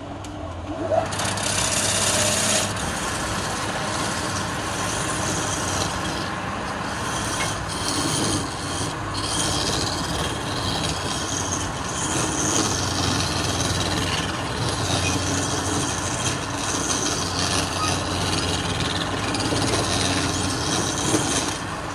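Wood lathe running with a low steady hum while a hand-held turning chisel cuts into the spinning wooden cylinder, giving a continuous scraping hiss. The cutting starts about a second in.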